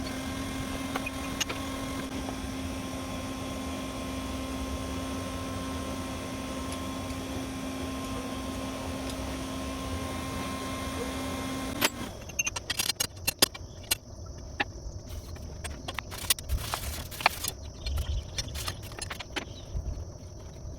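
A steady low machine hum that cuts off suddenly about twelve seconds in, followed by scattered sharp metallic clinks and taps.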